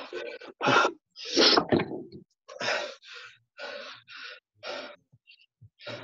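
Heavy, rasping breaths picked up close on a video-call microphone, a person out of breath from exercise, which sounds like Darth Vader. About one breath a second, the loudest in the first two seconds, then fainter.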